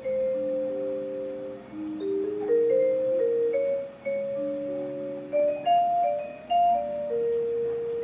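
Yamaha Piaggero NP-31 electronic keyboard playing back a built-in demo tune: a slow melody of ringing, fading notes over lower accompanying notes.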